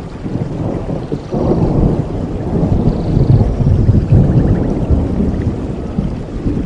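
Rolling thunder during rain: a low rumble swells about a second in, is loudest in the middle, and fades toward the end, over a steady noise of rain.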